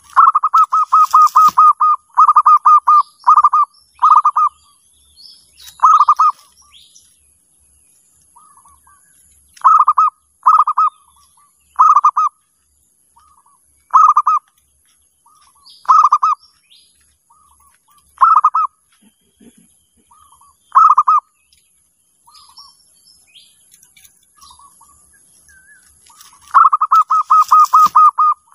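Zebra dove (perkutut) calling: quick runs of short staccato coos at the start and again near the end, with single short coo phrases every second or two in between.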